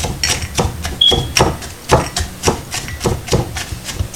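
A muddler pounding lime wedges, mint leaves and sugar against the bottom of a glass: a rapid, irregular series of knocks, about two or three a second. This is muddling, pressing the juice out of the lime and mint for a mojito.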